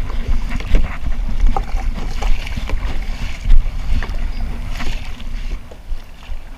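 Sit-on-top kayak being paddled on choppy sea: wind buffeting the microphone in a steady low rumble, with water splashing against the hull and the paddle dipping in short splashes at irregular intervals.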